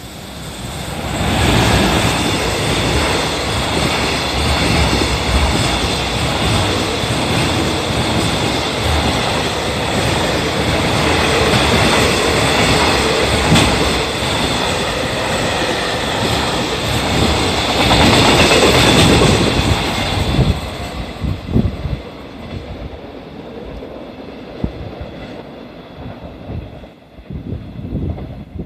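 An EF210 electric locomotive hauls a container freight train through the station without stopping. The noise builds over the first two seconds as the locomotive arrives and stays loud for about twenty seconds while the wagons run past. It drops off suddenly as the last wagon clears, leaving scattered wheel clicks that fade as the train recedes.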